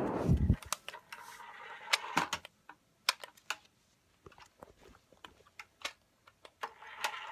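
A low thump at the start, then scattered light clicks and taps.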